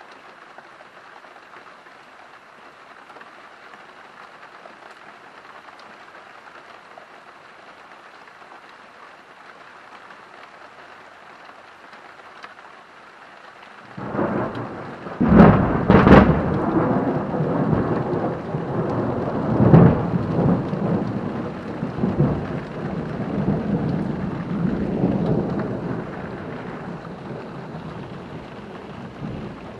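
Steady rain falling, then about halfway through a loud clap of thunder breaks in with a couple of sharp cracks and rolls on in peals for about ten seconds, slowly dying away under the rain.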